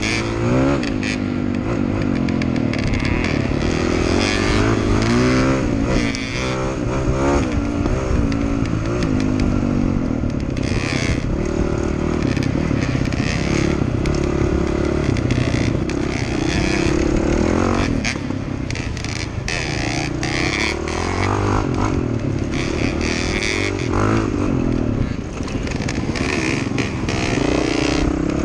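Dirt bike engine revving up and down hard as it races along a rough dirt trail, its pitch rising and falling with each gear and throttle change, with knocks and rattles from the bike over the bumps.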